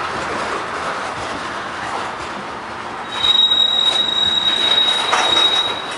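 Freight train's covered hopper cars rolling past on steel wheels. About halfway through, a steady high-pitched metallic squeal starts from the passing cars and holds for nearly three seconds, louder than the rolling.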